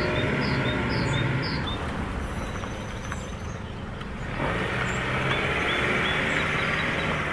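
A passenger car's engine running and then driving slowly past, its engine and tyre noise swelling about four seconds in.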